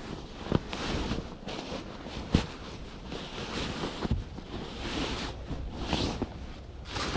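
Nylon shell of a Eurohike Adventurer 300XL sleeping bag rustling and swishing in surges as it is handled and unrolled from its strapped compression. Two sharp knocks, about half a second in and again near two and a half seconds.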